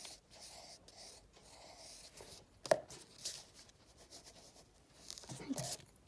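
Pencil scratching on paper in short strokes, with a sharp tap about two and a half seconds in.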